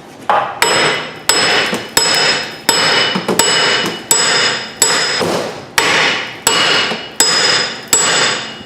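A big hammer striking the front wheel hub assembly about a dozen times at an even pace, roughly one blow every 0.7 seconds, each hit leaving a metallic ring: knocking the seized wheel bearing and hub loose in the steering knuckle.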